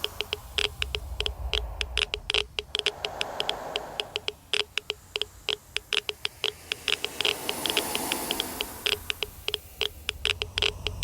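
Geiger counter clicking at irregular, random intervals, several clicks a second: the sign of ionising radiation being detected. Under the clicks runs a low rumbling drone, and a hiss swells and fades in the middle.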